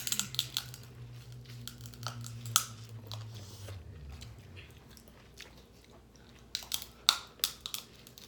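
People eating a seafood boil: chewing, with sharp cracks and crunches of shells being broken open, a loud crack about two and a half seconds in and a run of cracks near the end.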